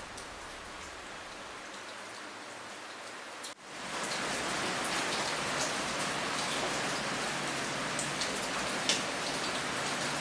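Steady rain falling, with a few sharp drop ticks. About three and a half seconds in it cuts out for an instant and comes back louder.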